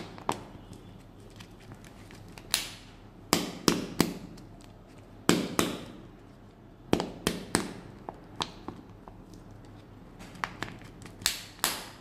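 Crinkly foil wrapper of a chocolate surprise egg being handled and peeled, with sharp crackles that come in several short clusters.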